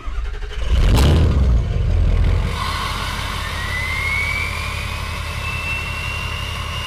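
Heavy engine rumbling, with a sharp crack about a second in and a louder rumble for the next second or so. From about three and a half seconds in, a whistle rises in pitch and then holds steady over the engine.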